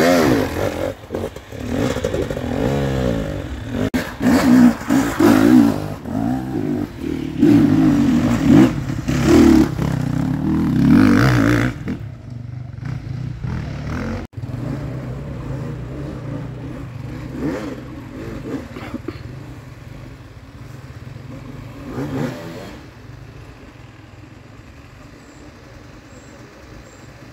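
Enduro dirt bike engine revving hard, the throttle opening and closing repeatedly as the bike climbs a muddy trail. About twelve seconds in the sound drops off to a fainter engine further away, with one short rev near the end.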